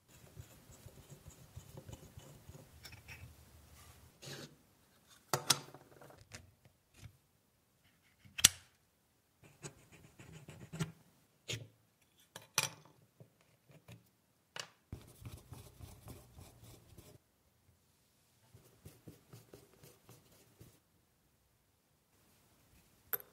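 Small screwdriver scraping and grinding as it turns a rusty set screw in the hub of an old Meccano wheel. This is followed by handling noise of metal parts and the wooden body on a workbench, with a few sharp clicks and knocks as pieces are pulled off and set down.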